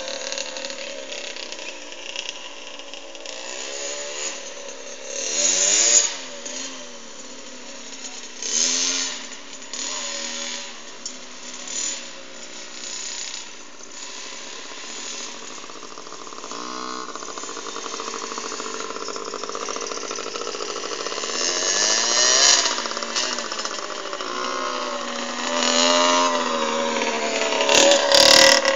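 Small two-stroke kids' dirt bike engine revving up and down over and over as it is ridden around, its pitch rising and falling with each burst of throttle, loudest near the end as the bike passes close.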